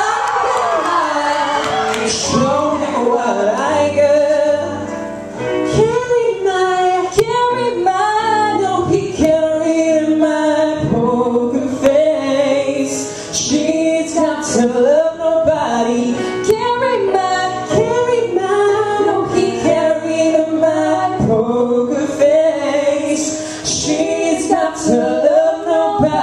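A woman and a man singing a pop song into microphones over a backing track with a steady beat, amplified through a PA speaker.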